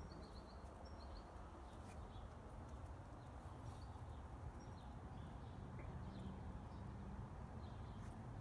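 Quiet outdoor background: a steady low rumble, with a few faint, short high chirps in the first second or so and scattered faint ticks.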